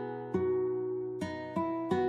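Background music: slow plucked acoustic guitar notes, each ringing and fading before the next.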